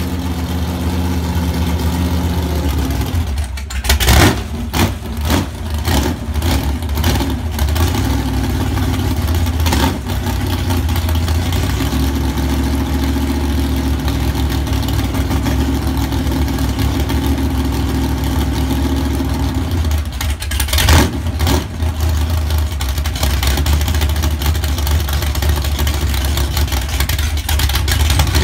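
383 cubic-inch Chevy small-block V8 (bored .030 over, 11:1 compression, Demon 750 CFM carburettor) running on an engine stand through unmuffled headers. The throttle is blipped in short bursts several times about four to seven seconds in, once near ten seconds, and again around twenty-one seconds, between stretches of steady running.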